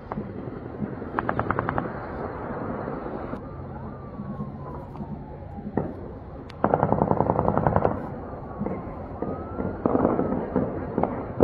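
Automatic gunfire from a clash between two armed clans. It comes in three bursts of rapid shots, a short one about a second in, the longest a little past the middle, and another near the end, with a few single shots between them.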